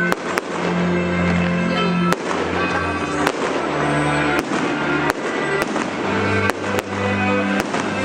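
Fireworks bursting with single sharp bangs every second or so, over loud music with long held notes.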